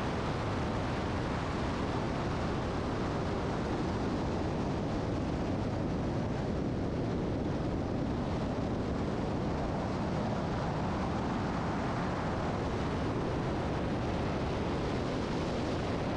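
Steady cockpit noise of a small aerobatic airplane in flight: engine and rushing air blended into an even hiss with no distinct engine tone, holding level throughout.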